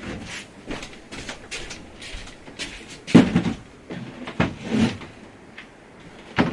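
Objects being handled and set down on a work surface: a series of short knocks and clatters, the loudest about three seconds in, again near five seconds, and at the very end.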